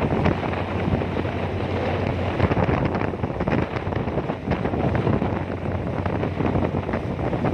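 Strong wind buffeting the microphone on a ferry's open deck, a steady rough rush, with the ferry's engine hum running low underneath.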